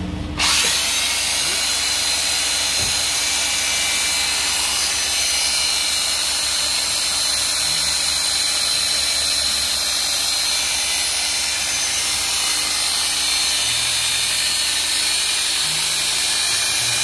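Makita electric hedge trimmer (110 V, 500 W, 70 cm blade) switched on about half a second in and running steadily with a loud, even buzz from its motor and reciprocating blades.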